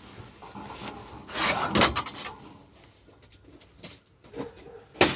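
Scrap parts being handled: a rough scrape about a second and a half in, a few light clicks, then a sharp knock near the end.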